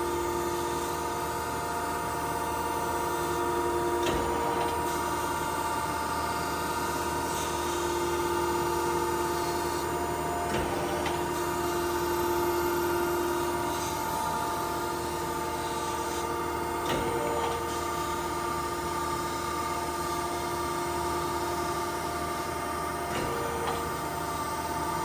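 1992 Okamoto ACC-2040DX2 hydraulic surface grinder running a fine-grind pass: a steady machine hum with several steady tones. A light knock comes about every six or seven seconds.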